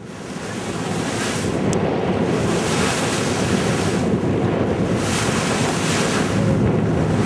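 Wind buffeting the microphone over the wash of the sea against a boat, with a low rumble underneath. The hiss of the water swells and eases every couple of seconds, and the sound fades in at the start.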